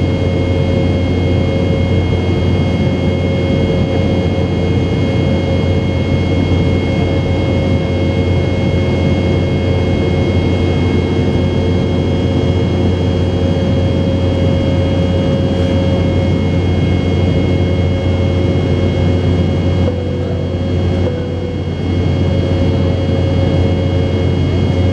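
Cabin noise inside a Boeing 717 in flight: the steady drone of its rear-mounted Rolls-Royce BR715 turbofans and the rush of air, with a few steady whining tones on top. The level dips briefly about twenty seconds in.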